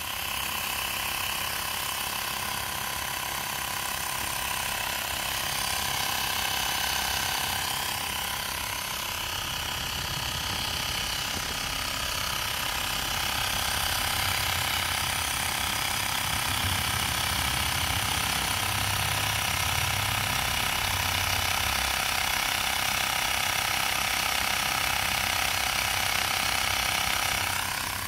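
Xiaomi Mi portable battery-powered air compressor running steadily, pumping air into a motorcycle tyre through its hose.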